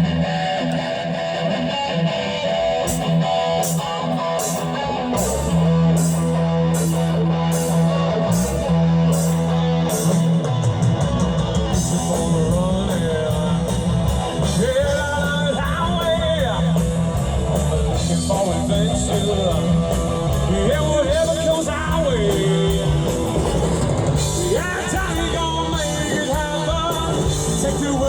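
A live rock band playing, with drums, bass and guitar. A singer comes in about halfway through.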